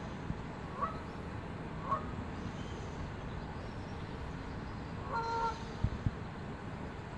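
A goose honking: two short calls about a second apart, then a longer honk about five seconds in, over a steady background noise.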